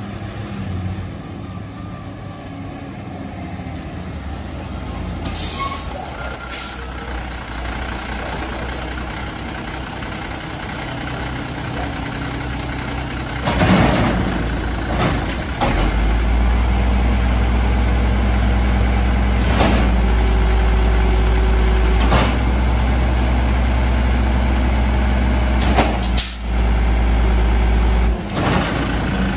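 1996 Volvo WXLL garbage truck with an Amrep Octo side-loader body pulling up and stopping, with a hiss of its air brakes about halfway through. Its diesel engine then runs loudly and steadily, broken by a few knocks and bangs.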